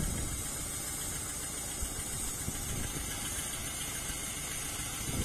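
Ruston diesel shunter's engine idling steadily, a low even rumble, as the loco is turned on a turntable worked by a vacuum motor.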